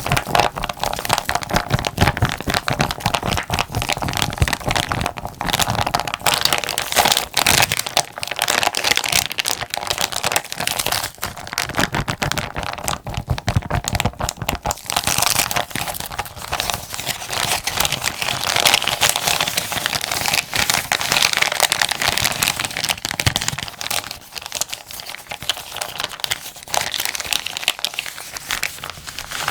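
Plastic zipper bag being crinkled and crumpled by hand: a steady, dense run of fine crackles.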